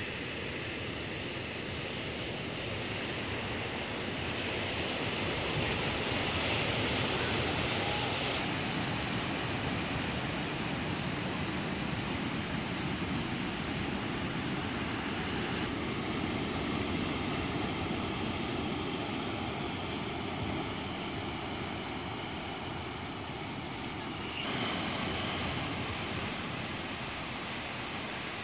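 Heavy surf breaking on a rocky shore: a steady rush of waves and foam, whose tone shifts suddenly a few times.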